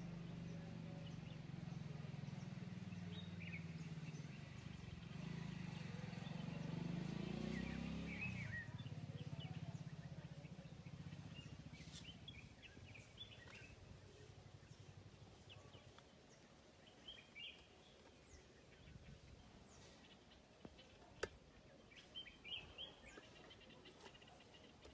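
Quiet outdoor garden ambience: a low steady rumble through the first several seconds that fades away, with scattered short bird chirps and a couple of sharp clicks.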